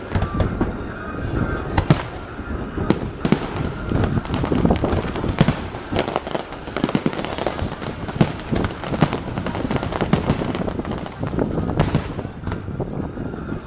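Aerial fireworks going off: a rapid, irregular string of bangs and pops with crackle between them.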